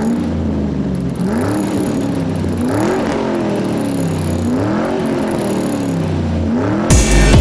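An engine revved again and again, each rev rising and falling in pitch about every second and a half. Near the end a loud electronic music beat starts.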